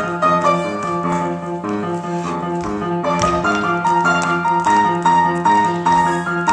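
Piano playing an up-tempo accompaniment, with a repeating bass figure under chords and a melody.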